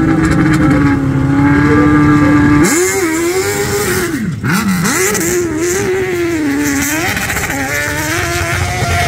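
Hill-climb dirt bike with a 1000cc, 180 hp engine, held at a steady high rev, then revving up and down over and over from about three seconds in as it launches and climbs the hill.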